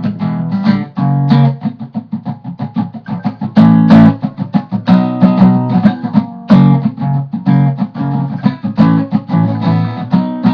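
Acoustic guitar strummed in a steady rhythm, playing an instrumental break between verses of a country song.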